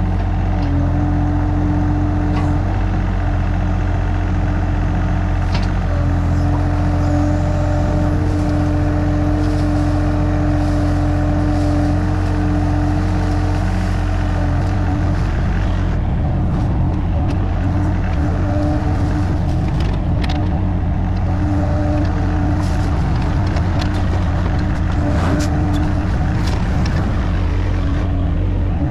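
Mini excavator's diesel engine running steadily as it digs. A held tone sits over the engine for the first half and fades about halfway through, with a few short knocks along the way.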